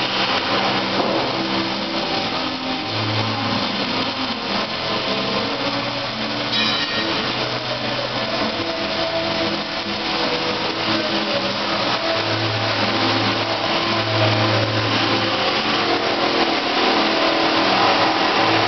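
Steady crackle and sizzle of an electric welding arc as a bead is run on the steel of a gooseneck trailer frame, unbroken throughout.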